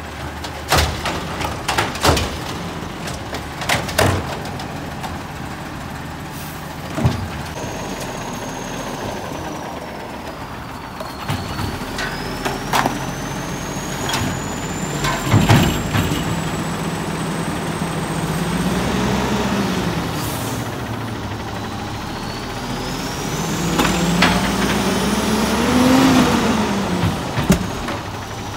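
Automated side-loader garbage truck emptying wheeled trash carts: the diesel engine revs up and down as the hydraulic arm lifts and lowers the carts, with several sharp bangs as a cart is shaken out over the hopper.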